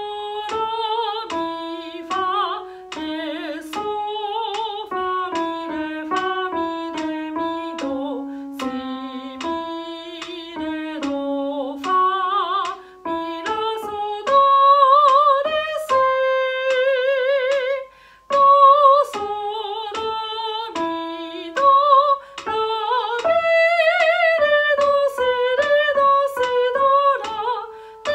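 A soprano singing a slow melodic exercise in fixed-do solfège syllables, one syllable per note, with vibrato on the longer held notes and a brief breath about two-thirds of the way through.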